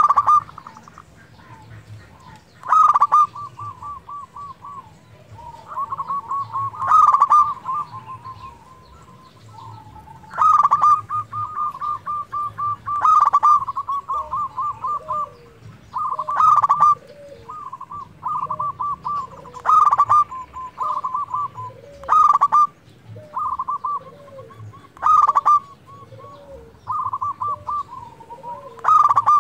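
Zebra dove (perkutut) singing. Phrase after phrase, every few seconds, a loud opening note runs into a rapid staccato trill of cooing notes.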